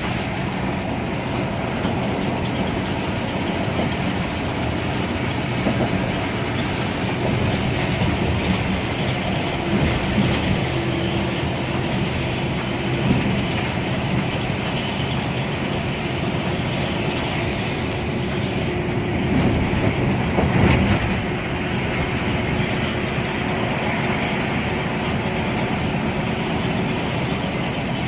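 Inside a coach bus cruising at highway speed: a steady drone of engine, tyre and road noise, with rattling from the cabin and a few louder knocks, the biggest about two-thirds of the way through.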